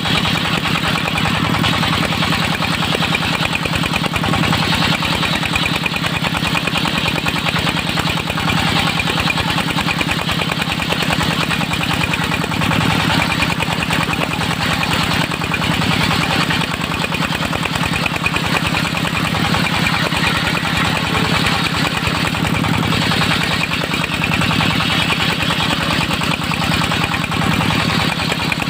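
Engine of a mobile circular-saw sawmill running steadily with a fast, even pulse.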